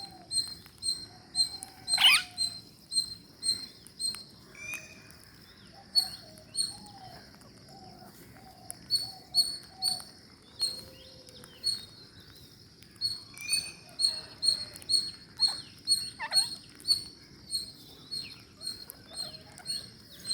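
Parrots calling: a steady run of short, high chirps about two or three a second, broken by sharp squawks that fall steeply in pitch, the loudest about two seconds in and more around the three-quarter mark.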